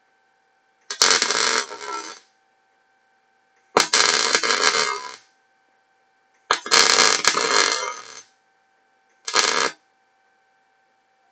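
MIG welder arc crackling in four short bursts, three of one to two seconds and a last one of about half a second. The bursts are tack welds joining wire mesh to steel angle iron.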